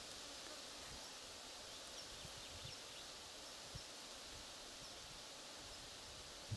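Faint meadow ambience: a steady high hiss with a few faint chirps and a couple of soft low bumps.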